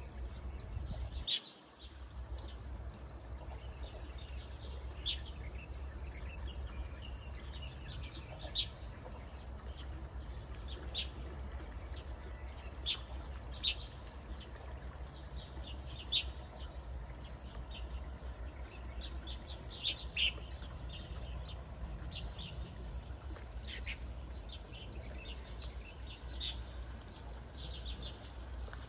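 Outdoor ambience of a steady, high insect trill with short bird chirps sounding every second or two over a low steady rumble.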